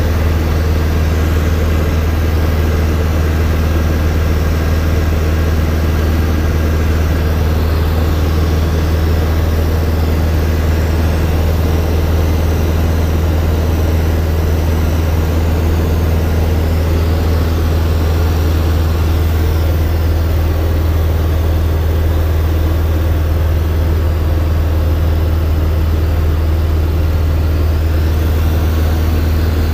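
Robin DR400 light aircraft's piston engine and propeller running steadily in cruise, heard inside the cabin as a loud, even low drone.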